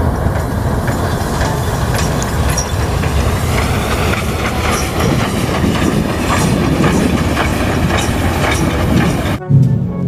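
Steam locomotive-hauled train running past on the rails: a steady, dense running and wheel noise with scattered light clicks. It cuts off suddenly about half a second before the end.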